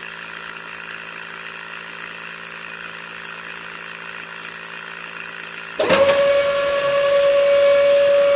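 Small DC toy motors running: a faint steady hum, then about six seconds in a louder, high steady whine starts suddenly as a geared DC motor driving a string winch spool spins up.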